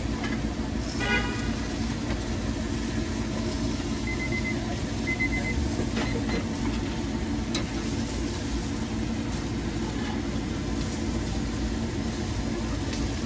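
Steady low rumble of roadside traffic and engines, with two short high electronic beeps about four and five seconds in.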